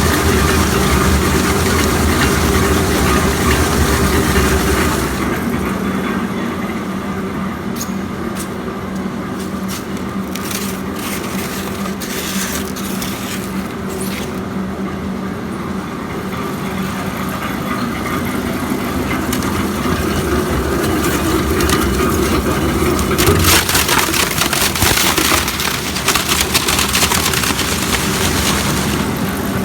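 Styrofoam melting machine running with a steady motor hum, scattered clicks in the middle, and a louder, harsher grinding noise over the last several seconds.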